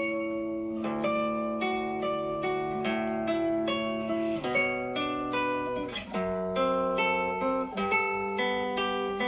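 Background music: an acoustic guitar plucking notes and chords, changing chord about every second.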